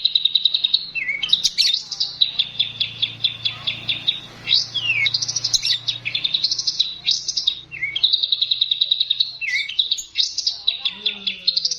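Labet songbird singing: fast, high-pitched trills of rapidly repeated notes in phrases a second or two long, broken by short sliding whistles. This is the bird's song as recorded for masteran, a tutor track for training other cage birds.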